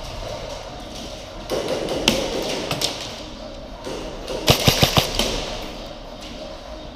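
Airsoft guns firing: a couple of single shots, then a quick burst of about five shots about four and a half seconds in.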